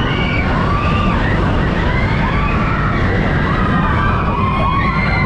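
Ride passengers screaming together in the dark, several voices in long overlapping screams that rise and fall in pitch, over the steady rumble of the moving ride vehicle.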